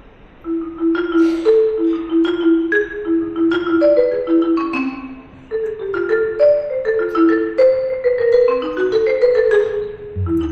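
A tune played note by note on a tuned percussion instrument, each note struck and briefly ringing, about three notes a second. It starts about half a second in, with a short break a little past halfway.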